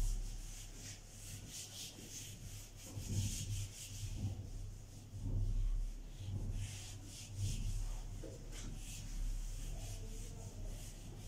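Whiteboard eraser wiped across a whiteboard in repeated quick strokes, a dry rubbing hiss that stops and starts. A steady low electrical hum runs underneath.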